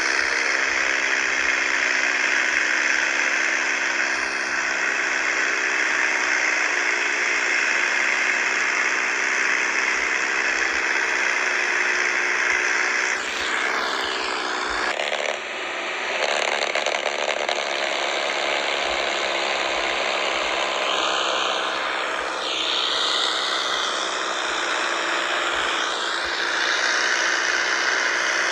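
Small electric motors and plastic gears of radio-controlled toy tractors whirring steadily, with a wavering hum under a high hiss and short gliding tones in the second half.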